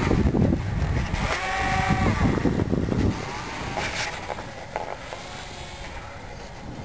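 Electric RC airplane's motor and propeller buzzing as it passes low overhead, the pitch dropping as it goes by, then fading as the plane flies off. A low rumble underneath drops away about three seconds in.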